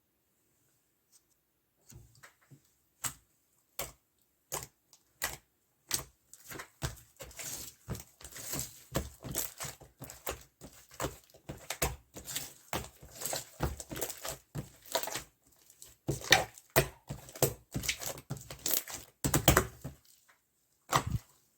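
Slime mixed with mermaid pearl powder being handled, pressed and stretched, giving sticky clicks and small pops. It starts with a few isolated clicks after a short quiet moment, then becomes a dense run of crackling pops from about six seconds in.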